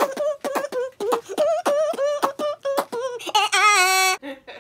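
A high voice singing wordless syllables in a quick, choppy rhythm, then holding one long note near the end before cutting off.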